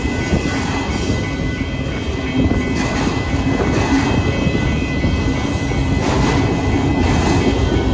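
Autorack freight cars of a Union Pacific auto train rolling past at a grade crossing: a steady loud rumble of steel wheels on rail, with rapid clicks. A crossing warning bell rings over it.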